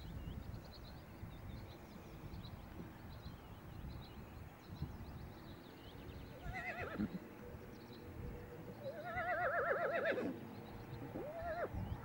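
Icelandic horses whinnying: three calls with a quavering pitch. A short one comes about six and a half seconds in, a longer, louder one near ten seconds, and a brief one just before the end.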